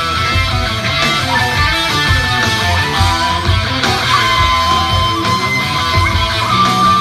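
Loud rock music: a guitar plays a held, bending melody over a steady beat.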